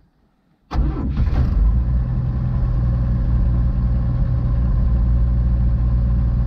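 The 1952 GMC truck's carbureted engine starts suddenly about a second in and settles into a steady, low-pitched idle.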